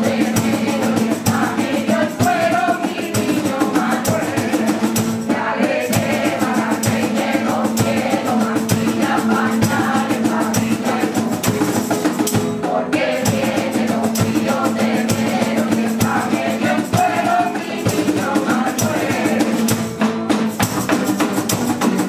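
A rociero choir of women's voices singing a Christmas villancico, with strummed Spanish guitars, a cajón and a tambourine keeping a steady rhythm.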